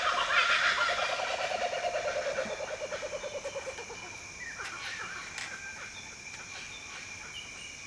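Bird calls: a rapid chattering call that trails off over about four seconds, then a few short falling chirps, over a steady high-pitched whine.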